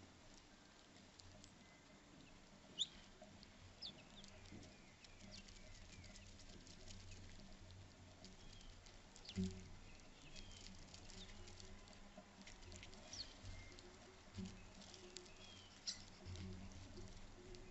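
Faint, scattered taps and clicks of a northern flicker pecking and shifting its grip on a tube bird feeder, with a few very short high squeaks among them.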